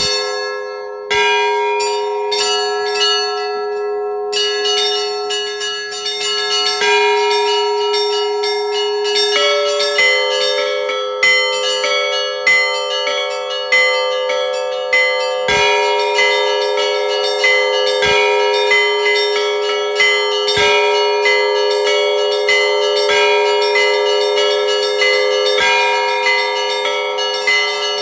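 Russian Orthodox church bells ringing together in a festal peal: quick repeated strikes of small bells over ringing middle bells. From about halfway on, a heavier bell sounds every two to three seconds.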